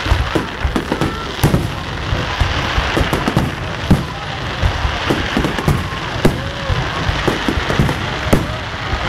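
Aerial firework shells bursting in a fast, uneven string of bangs over a steady noisy background.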